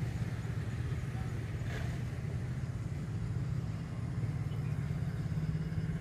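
A vehicle engine running steadily, a low even hum.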